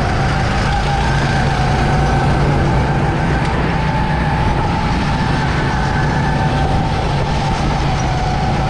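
Go-kart engine running at a steady, slightly wavering pitch while the kart drives on the track, with wind and rumble on the microphone.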